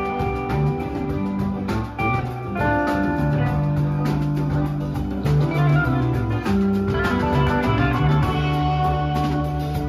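Live rock band playing an instrumental jam, with lead guitar lines over bass, drum kit and hand drum.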